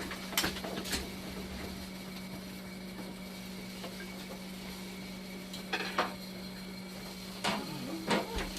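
A steady low machine hum, with a few sharp clicks and knocks of parts being handled: a couple near the start, two close together a little past the middle, and two more near the end.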